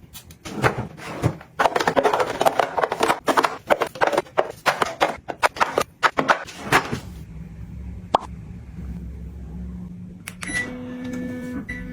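Objects being handled and set down in quick succession, with many clicks, taps and rustles. About seven seconds in, this gives way to a low steady hum with a single click, and near the end a steady tone joins the hum.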